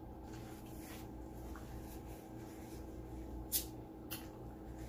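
Hands twisting the cap of a cold glass beer bottle through a paper towel: faint rubbing, then two sharp clicks about three and a half and four seconds in.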